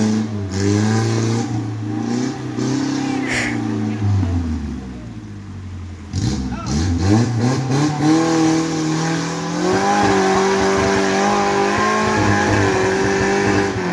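Engine of a Suzuki Jimny off-road 4x4 revving hard under load as it tries to climb a muddy bank out of a stream. The revs rise and hold, drop about four seconds in, then climb again about two seconds later and stay high to the end.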